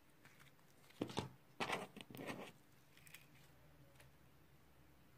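Pink slime being stretched and squished between the hands: a few short squishing sounds about one second and two seconds in, and a fainter one near three seconds.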